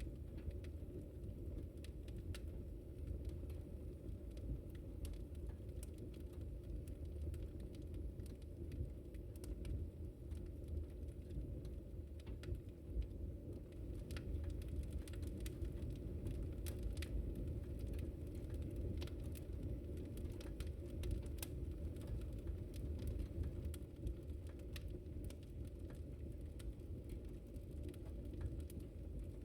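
Wood fire burning: a steady low rumble with many irregular sharp crackles and pops of the burning wood.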